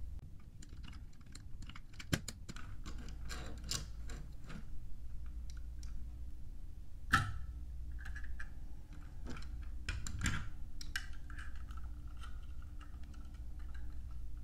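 Plastic LEGO models handled on a wooden table: scattered light clicks and knocks of plastic pieces, with the sharpest click about seven seconds in and a quick run of clicks around ten seconds.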